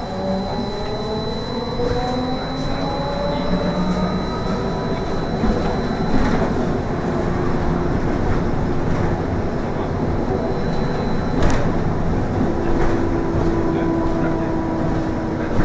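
Trolleybus electric traction drive heard from inside the cabin, whining in several tones that rise as it accelerates, over steady road and cabin noise. A single sharp click comes about eleven and a half seconds in, and a steady hum sets in over the last few seconds.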